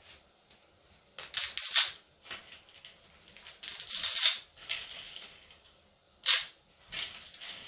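A bundle of dry spaghetti snapped by hand into short lengths. The strands break with sharp cracks that come in about five separate bursts, with quiet gaps between them.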